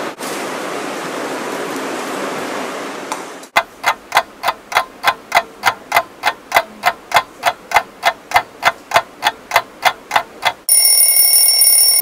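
A steady hiss, then a clock ticking about three times a second, ending in a loud alarm ring for the last second or so: a countdown timer going off.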